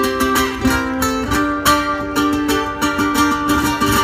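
Two ukuleles playing an instrumental duet, a quick run of plucked notes over chords.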